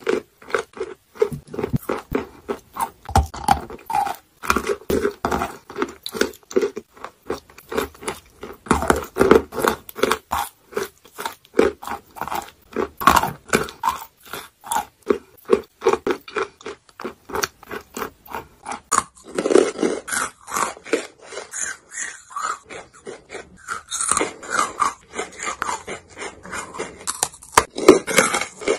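Close-miked biting and chewing of chalk: crisp crunches, several a second, mixed with wet, pasty chewing.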